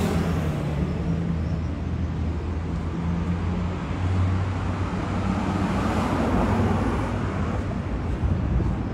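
Road traffic beside the pavement: a steady low engine hum from motor vehicles, with a vehicle passing that swells to its loudest about five to seven seconds in.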